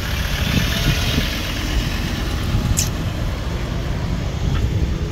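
Car-park traffic noise: a steady low vehicle rumble, with one short high chirp a little under three seconds in.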